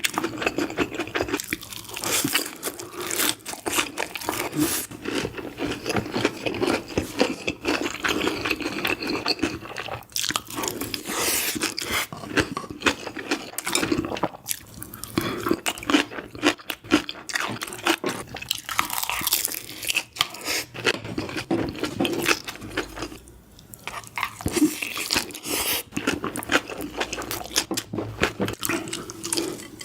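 Close-miked eating: a person biting into and chewing crunchy food, a continuous run of crisp crackles and crunches with a brief lull past the middle.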